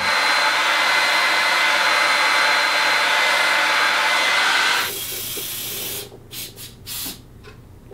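Handheld hair dryer running steadily, a loud blowing hiss with a thin motor whine. It stops about five seconds in, and a few short, soft noises follow.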